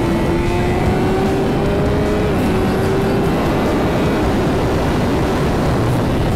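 BMW S1000RR's inline-four engine pulling hard at high speed, heard from onboard under heavy wind rush on the microphone. The engine note climbs steadily and drops with an upshift about two and a half seconds in.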